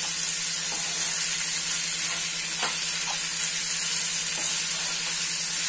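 Chopped tomatoes and onions sizzling in oil in a non-stick pan as a metal spoon stirs them, with a few light scrapes and taps of the spoon on the pan. The tomatoes are being sautéed until they soften into a mush.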